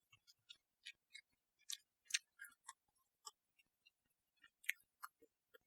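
Close-miked chewing: soft, irregular wet and crisp mouth clicks, roughly two a second, of someone eating.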